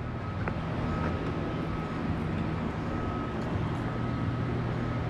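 Steady low mechanical hum with a faint constant high-pitched tone, and a few faint clicks.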